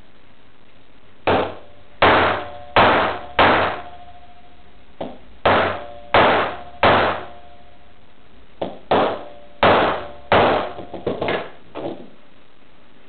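Hammer blows on a steel punch driven into a tin ring blank on a wooden block. There are three groups of about four sharp, briefly ringing strikes, then a quick run of lighter taps near the end.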